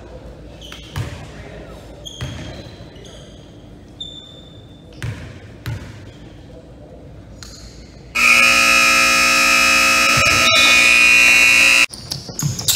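A basketball bounces a few times on a hardwood gym floor. Then a gym scoreboard buzzer sounds one loud, steady blast of nearly four seconds that cuts off suddenly.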